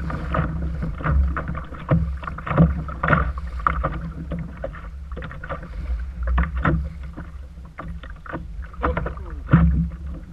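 Choppy waves slapping against a plastic kayak hull, with irregular splashes and knocks over a steady low rumble of wind on the microphone.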